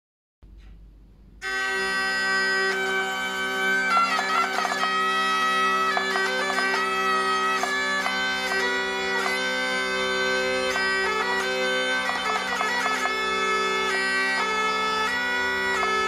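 Hurdy-gurdy playing a tune on its keys over steady drone strings, bowed by the cranked wheel, starting about a second and a half in. It is a newly built instrument sounding for the first time.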